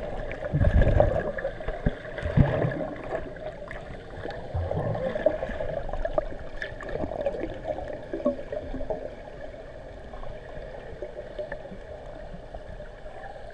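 Muffled underwater sound of pool water heard through a submerged camera: a steady gurgling wash, with a few dull thumps in the first few seconds as the water is stirred by swimming movements.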